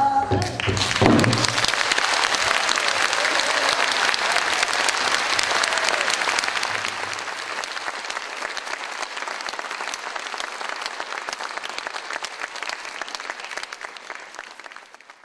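Audience applauding at the end of a pansori song, strong at first, then slowly fading and dying away near the end.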